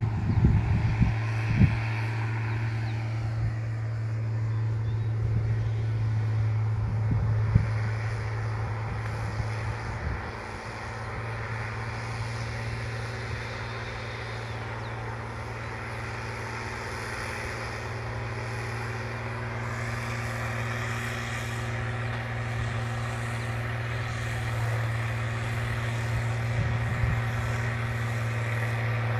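Valtra BH180 tractor's diesel engine running at a steady speed, rumbling nicely with a deep even drone. A few sharp knocks in the first several seconds.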